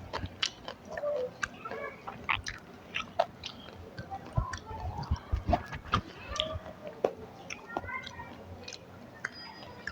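A person eating close to the microphone: irregular wet chewing and lip smacks, with soft clicks of mouth and fingers on food.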